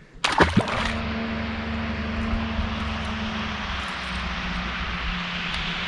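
After a short burst of noise near the start, the outboard motor of an approaching boat runs at a steady drone, with a broad rushing noise over it.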